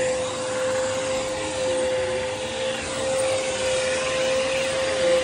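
A carpet vacuum runs with a steady high whine over a rushing hiss that swells and eases slightly as it is pushed over freshly cleaned carpet to raise the pile.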